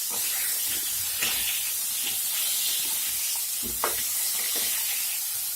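Potato pieces frying in hot oil in a kadhai, a steady crackling sizzle, with two brief light knocks about one and four seconds in.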